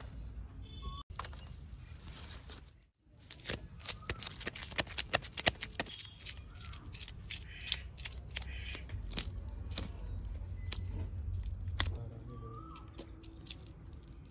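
A rapid run of sharp clicks and scrapes of a blade working on a fish, dense from about three seconds in and thinning out near the end.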